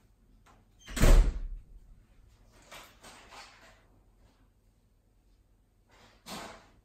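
A loud bang about a second in, followed by softer rustling and scraping and a shorter knock near the end.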